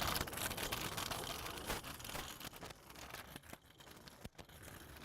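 Small scooter wheels rolling over pavement, a rough rolling noise with many small clicks that fades as it moves away.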